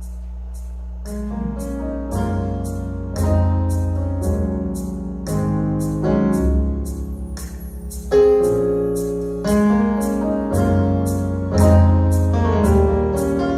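Instrumental worship music: sustained keyboard chords over a deep bass line, with a light high ticking beat about twice a second, like the intro before the singing starts.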